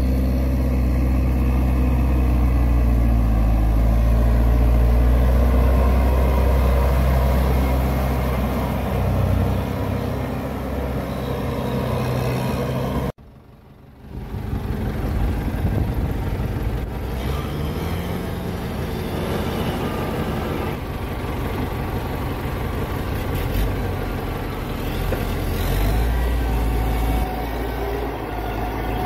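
Tractor diesel engines running under load in mud, a steady low engine drone. The sound breaks off for about a second near the middle, then another tractor engine is heard close up, rising in pitch at times as it is worked.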